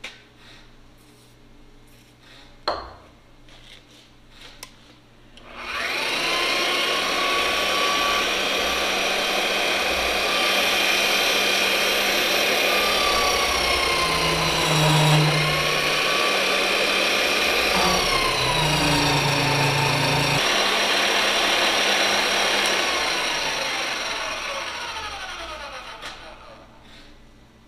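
Magnetic drill with an annular cutter boring a bolt hole through a steel truck frame rail. A sharp knock comes early. About six seconds in the motor starts and runs loud, its whine dipping and recovering as the cutter is fed in under load. Near the end it shuts off and winds down with falling pitch.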